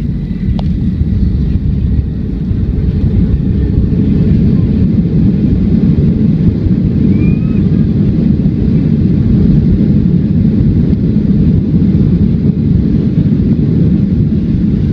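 Loud low roar inside the cabin of a Boeing 737-300 rolling down the runway just after touchdown with its ground spoilers up. The engines and the runway roll swell over the first few seconds and then hold steady.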